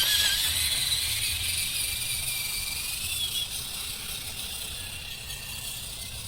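Sensorless 1250 outrunner brushless motor of an RC SCX10 rock crawler, whining as the truck drives. The whine falls in pitch and fades out after about three seconds, leaving a faint low drivetrain rumble.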